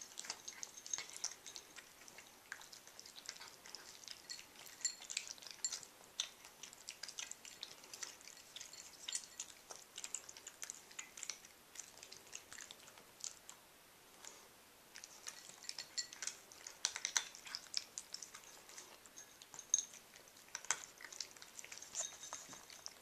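Cats crunching dry kibble from their bowls: a run of small, irregular crunches and clicks, with a short lull about fourteen seconds in.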